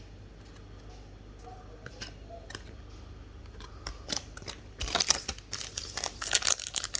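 Crinkling and rustling of a foil Yu-Gi-Oh booster-pack wrapper and cards being handled. It is faint and sparse at first, then busy and louder from about five seconds in.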